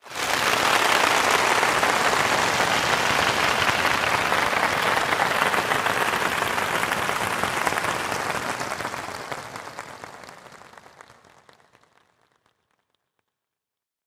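Crowd applauding: a dense, steady clatter of many hands clapping that starts abruptly, holds for about eight seconds, then dies away over the next four seconds.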